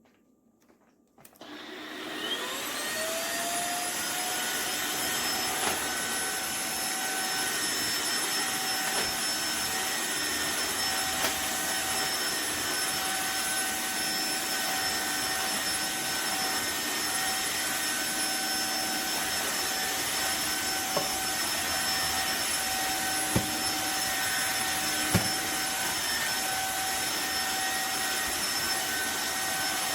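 Tineco iFLOOR 3 cordless wet-dry floor cleaner starting up about a second in, its motor whine rising in pitch as it spins up, then running steadily. Two short clicks near the end.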